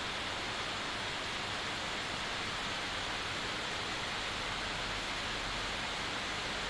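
Steady, even hiss of the recording's background noise, with no other sound standing out.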